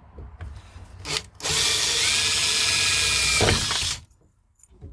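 Electric drill boring into a car's ignition lock cylinder: a short blip about a second in, then a steady run with a whine for about two and a half seconds before it stops.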